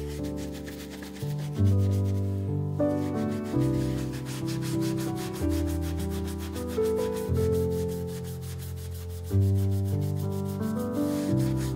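Cloth rubbing over the leather of a Red Wing Irish Setter boot in quick, scratchy back-and-forth strokes as the boot is cleaned, with a short break about two and a half seconds in. Gentle piano music plays alongside.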